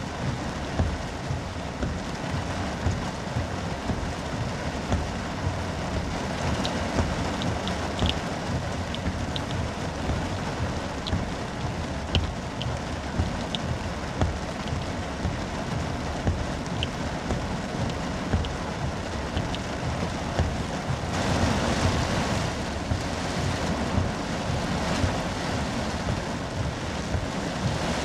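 Heavy rain pelting a car's windshield and roof, heard from inside the car, a dense patter of drops that grows louder about three-quarters of the way through.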